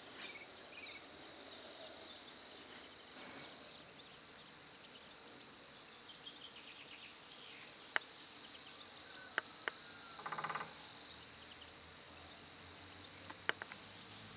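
Faint outdoor ambience of birds and insects: a steady high-pitched trill throughout, with repeated short bird chirps in the first two seconds. A short rasping, pulsed call comes about ten seconds in, and a few sharp clicks are scattered through.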